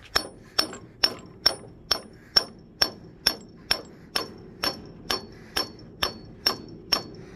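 Steady hammer blows on steel, about two a second, each with a short metallic ring, driving a Crosby closed spelter socket down over the end of a stiff 7/8-inch wire rope.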